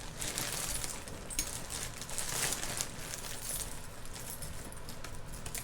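Loose costume jewelry (bracelets, necklaces, earrings) clinking and jangling as it is picked through by hand, with a light rustling and many small scattered clicks.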